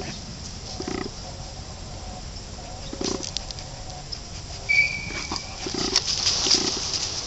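Black retriever-mix dog snuffling with its nose down in grass: short, low, pulsing puffs of breath, about five of them at uneven intervals, with a light rustle of leaves.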